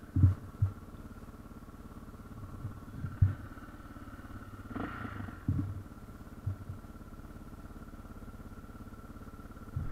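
Single-cylinder four-stroke engine of a Yamaha TT600R enduro motorcycle idling steadily, with a few short dull knocks from the bike being handled.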